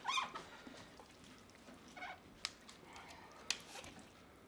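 Faint handling sounds of hands working a raw turkey on a metal sheet pan: soft squishes of the skin and a few small clicks and taps, the sharpest about two and a half and three and a half seconds in. A brief pitched sound at the very start is the loudest thing.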